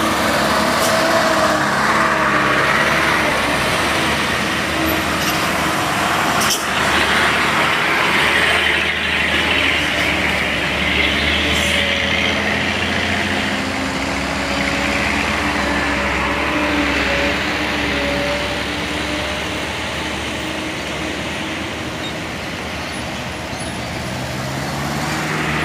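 Heavy diesel traffic on a steep hill road: a big bus and trucks running past, their engine note drifting up and down over heavy tyre and road noise, with a single short knock about six seconds in.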